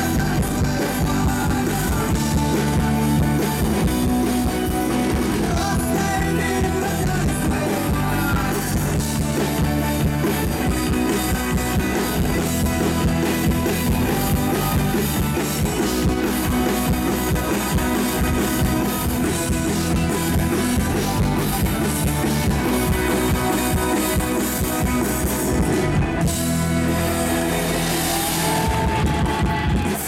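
Live rock band playing loudly through the stage PA: electric guitars, bass, drum kit and an amplified violin.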